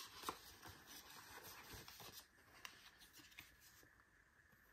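Faint paper handling: soft rustles and light taps as a glossy photo print is picked up off a photobook, with one small click just after the start, fading to room tone after about two seconds.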